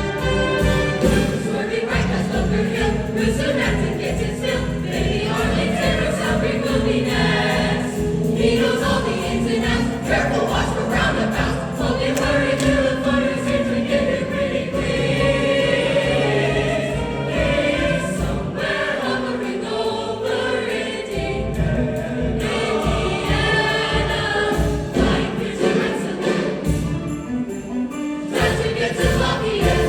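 A choir singing to musical accompaniment with a steady beat.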